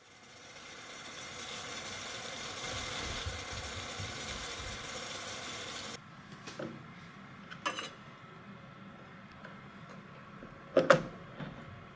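Steady hiss of steam and boiling water from a pot under a bamboo steamer, swelling and then cut off abruptly about halfway through. Then a few light clicks and a sharp double knock of a kitchen knife against a wooden cutting board near the end.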